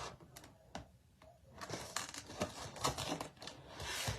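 Irregular clicks and rustling of small objects and packaging being handled, busier in the second half.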